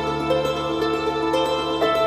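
Instrumental background music: a held low note under a slowly moving line of higher notes.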